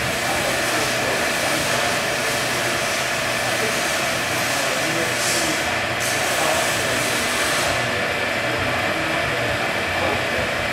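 Servo-hydraulic test system running steadily while it cyclically loads a CFRP-repaired prestressed concrete girder in a fatigue test: a constant machine hum and hiss with a few steady tones. The highest part of the hiss thins out about eight seconds in.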